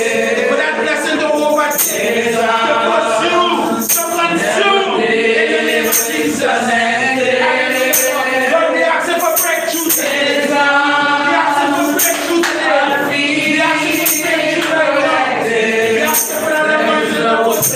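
A woman singing a worship song into a microphone, amplified through a PA speaker. Sharp jingling percussion hits come about every second or two.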